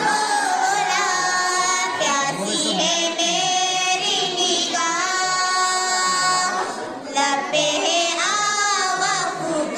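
A young girl singing a manqabat, a devotional song, into a microphone: long held notes with a bending, ornamented pitch, with short breaths between phrases about two seconds in and again about seven seconds in.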